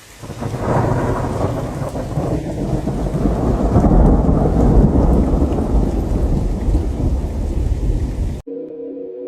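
Thunderstorm: steady rain with a long rumbling roll of thunder that swells to its loudest about halfway through, then cuts off abruptly near the end.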